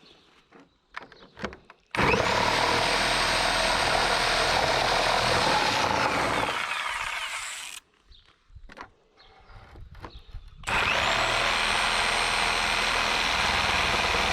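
A power tool running in two spells, each starting abruptly with a high motor whine and a dense noise of working; the first fades out about halfway through, and the second starts near the end. Between them come a few sharp knocks.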